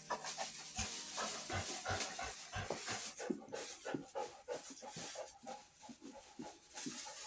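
A dog panting quickly and steadily, about three breaths a second.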